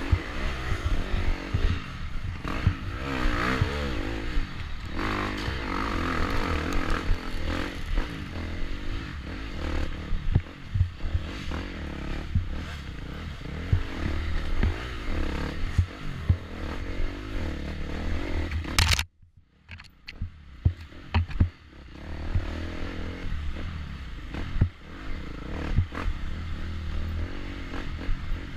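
Dirt bike engine revving up and down under hard throttle on a rough trail, with frequent sharp knocks and rattles from the bike. The sound drops out almost completely for about two seconds roughly two-thirds of the way through, then the engine comes back.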